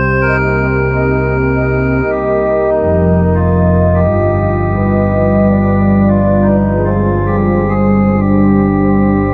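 Organ playing held chords, the bass note moving about two, three and four seconds in, with a slight waver in some of the upper notes.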